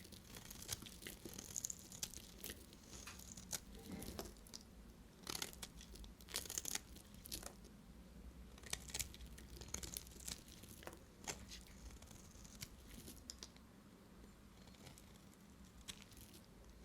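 Dry bar soap being cut and broken with a knife: a run of crisp crackles and snaps that come thick and fast at first and thin out over the last few seconds.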